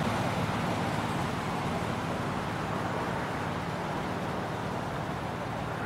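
Miniature railway train rolling away along the track: a steady rumble of wheels on rail that slowly fades as it recedes.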